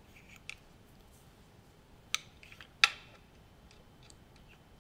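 Light metallic clicks and taps of a wristwatch being clamped into the holder of a watch timing machine, with two sharper clicks about two and three seconds in, the second the loudest.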